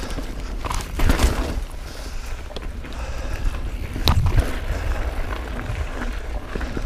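Mountain bike ridden along a dirt forest trail, rattling and rumbling over the ground with a steady low rumble. There are two heavier jolts, about a second in and about four seconds in, as it comes down small drops.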